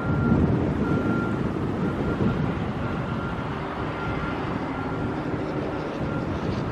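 Steady, fluctuating low rumble of outdoor noise: wind on the microphone mixed with distant vehicle engine noise.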